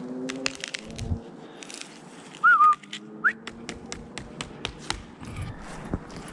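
Footsteps crunching in snow. About two and a half seconds in comes a short wavering whistle, then a quick rising one, a person whistling to call a dog.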